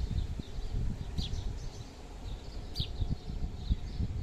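A bird calling: short high chirps that fall in pitch, heard clearly twice, with fainter chirps between. Under them runs an uneven low rumble of wind buffeting the microphone.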